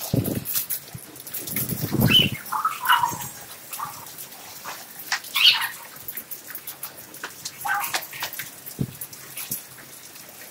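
Hailstones and rain striking a rooftop as many scattered sharp clicks, with a few short animal calls, cat-like meows, about two, five and a half, and eight seconds in.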